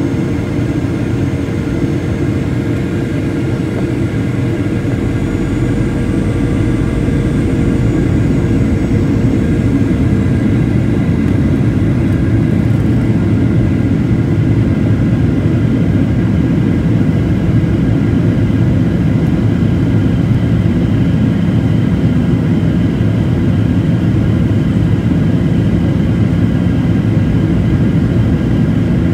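Airliner cabin noise in flight: the steady drone of the engines and rushing air, with a few faint steady whining tones above it. A low hum in the mix fades out about ten seconds in.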